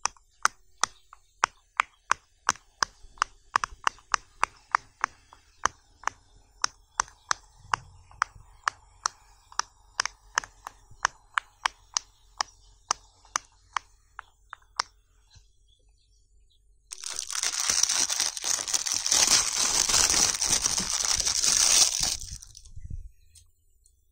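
Silicone pop-it bubbles popping one at a time under a pencil eraser, about three sharp pops a second for some fifteen seconds. After a short pause comes about six seconds of dense, scratchy noise, as loud as the pops.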